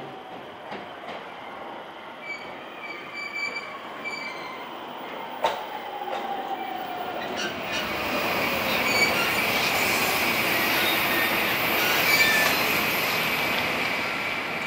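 Sotetsu 10000 series electric train arriving and braking: the whine of its Mitsubishi three-level IGBT VVVF inverter falls in pitch as the train slows. Wheel and running noise grows louder as the cars draw level, with a sharp knock about five seconds in and a steady high squeal in the last few seconds.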